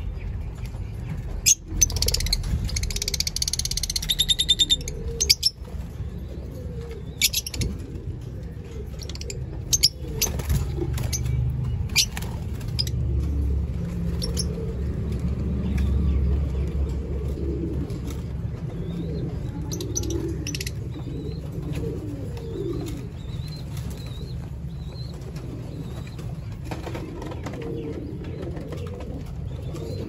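Birds chirping faintly, over a steady low rumble, with sharp clicks and rustling in the first dozen seconds as a hand works in a wooden nest box bedded with seed husks.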